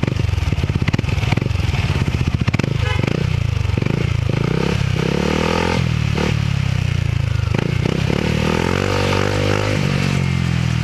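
Yamaha NMAX scooter's single-cylinder engine running through an Exos X6 aftermarket power pipe exhaust, revved in several short throttle blips that rise and fall in pitch. It settles back to a steady idle near the end.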